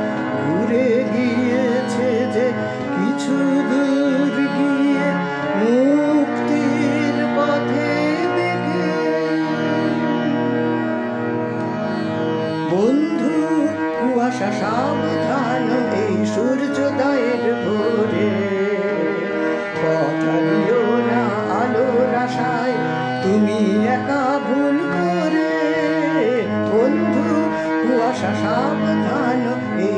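Instrumental music of a song's backing track: sustained chords held under a melody of sliding, bending notes.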